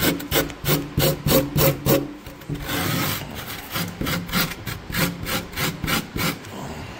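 Small hand-held grater rasping rigid styrofoam foam, rounding off its edges in quick back-and-forth strokes. The strokes come about four a second at first, with a longer continuous scrape about three seconds in.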